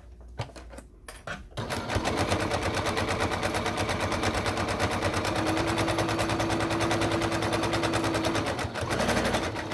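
Electric domestic sewing machine stitching a seam: a few separate stitch clicks, then from about a second and a half in it runs at speed with a rapid, even clatter of needle strokes, stopping near the end.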